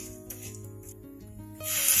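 Soft background music, then, about one and a half seconds in, a sudden loud sizzling as ground masala paste drops into hot oil in a frying pan.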